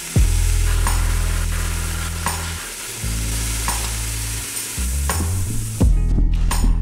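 Belt sander grinding the end of a copper pipe, a steady abrasive hiss that stops about six seconds in, with background music underneath.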